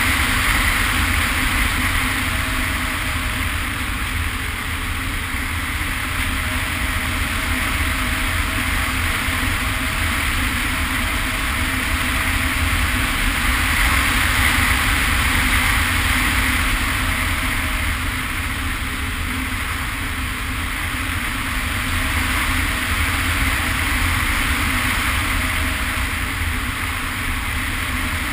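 Wind rushing over a camera riding on a flying Hawk Sky RC plane, mixed with its electric motor and propeller running. The rush swells and eases slowly.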